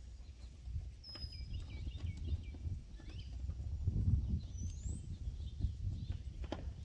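Faint bird chirps over a low steady rumble, with a sharp click of scissors snipping herb stems near the end.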